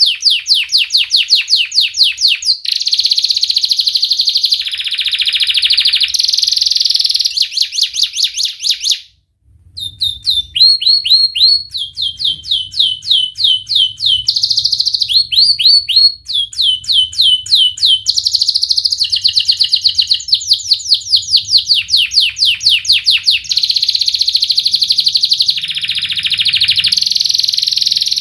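Domestic canary singing a fast, dense song of sharp repeated 'wit wit' and 'cuit cuit' chirps running into rolling trills. The song is loud and continuous, broken once by a short pause about nine seconds in.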